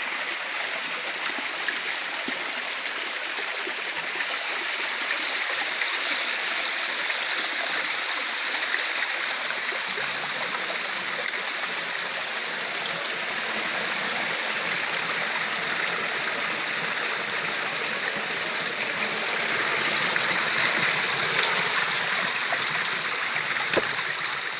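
Flowing stream water rushing steadily, a constant hiss of running water that swells slightly near the end.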